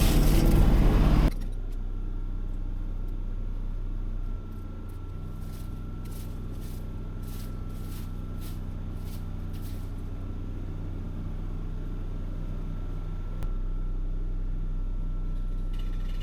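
A machine's engine running steadily at idle, after a louder rush of noise cuts off about a second in.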